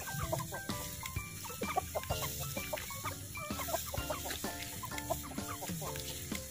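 Thai game chickens (ayam Siam, Bangkok fowl) clucking in a run of many short calls while they forage.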